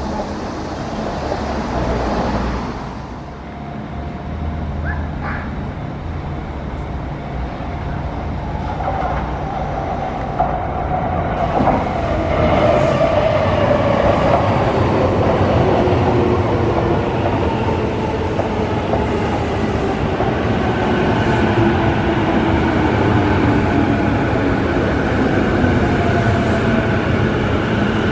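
Sotetsu stainless commuter electric train running into a station and braking, its motor whine sliding steadily down in pitch over the rumble of wheels on rail. The sound grows louder as the train comes alongside.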